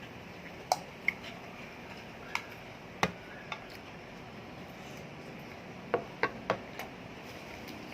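Eating and handling food: scattered short clicks and taps, about nine in all, with three close together around six seconds in, over a steady low room hiss.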